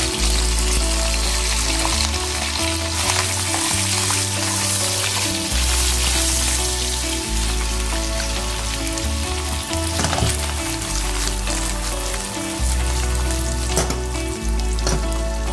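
Pieces of boiled beef sizzling as they fry in hot oil in a non-stick wok, stirred with a silicone spatula, with a few sharp clicks. Background music with a stepping bass line plays underneath.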